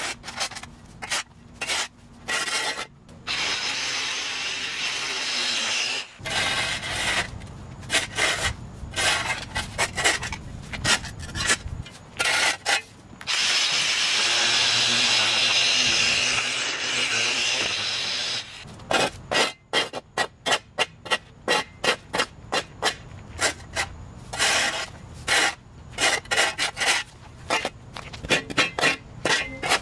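Repeated scraping strokes of a flat shovel along the concrete edge of a sidewalk, clearing packed dirt and overgrown grass. About halfway through, a Milwaukee battery pole edger runs steadily for several seconds, its blade cutting along the edge. Quick scraping strokes follow, about two a second.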